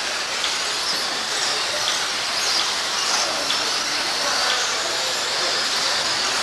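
A pack of 1/10-scale 2WD electric stock buggies racing on a dirt track: the high whine of their electric motors and gears rising and falling as cars pass, over a steady hiss.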